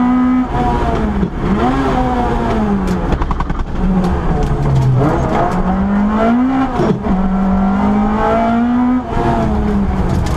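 Peugeot 205 GTI rally car's engine heard from inside the cabin at full stage pace. It revs up and drops repeatedly through gear changes and lifts for the bends, with a few sharp clicks near the middle.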